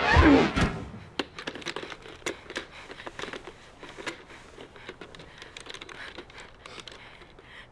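Irregular clicks and rattles of a black rotary-dial telephone being handled, a few per second, fading toward the end. A loud falling tone sounds in the first second before the clicking starts.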